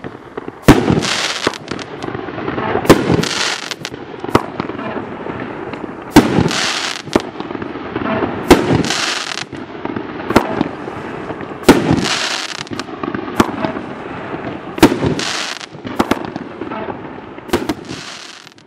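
Dominator DM502 'Living Dead' 500-gram fireworks cake firing its 1.5-inch shells: a series of sharp bangs a few seconds apart, each followed by dense crackling from the brocade and delayed-crackle breaks. The crackle fades out near the end.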